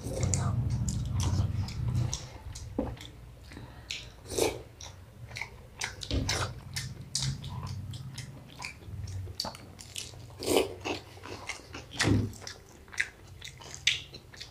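Eating sounds from two people eating rice and curry by hand: chewing and wet mouth smacks in short, irregular clicks.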